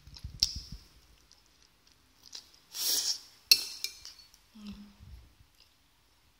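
Metal chopsticks clicking against a ceramic plate, the loudest clink about three and a half seconds in, when they are laid down on the plate. A short hissing rustle comes just before it.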